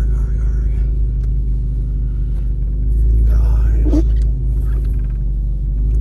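Steady low rumble of a car driving through deep fresh snow, heard from inside the cabin, with the engine's steady hum underneath.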